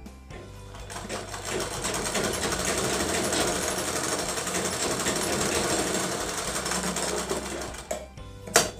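Sewing machine running steadily as it stitches a folded hem, picking up speed in the first second and stopping about eight seconds in. A couple of sharp snips of scissors cutting the thread follow near the end.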